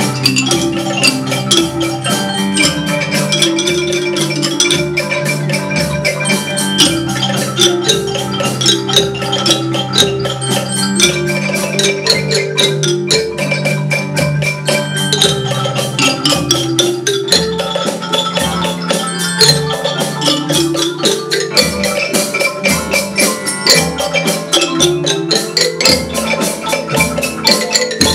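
A children's Orff ensemble plays a piece together on wooden xylophones, bass xylophones and glockenspiels. Many struck bar notes ring over a repeating low bass line in a steady beat.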